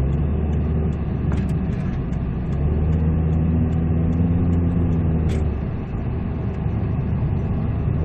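Car engine and road noise heard from inside the cabin of a Peugeot 207cc while driving, a steady low rumble. A deeper, steady-pitched engine hum stands out for about three seconds in the middle.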